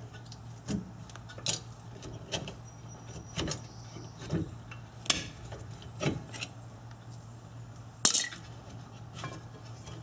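Light metal clicks and clinks at uneven intervals as a flathead screwdriver pries a rear disc-brake caliper and the caliper and its pads are worked loose by hand. The sharpest click comes about eight seconds in.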